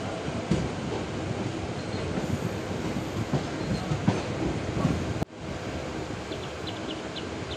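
Electric MEMU passenger train running: a steady rumbling noise with irregular knocks of the wheels and coach. A little over five seconds in it cuts abruptly to a quieter steady noise with a few faint high chirps.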